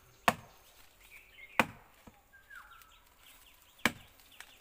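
Machete blade chopping into a living tree trunk: three sharp, unevenly spaced strikes of steel biting into wood.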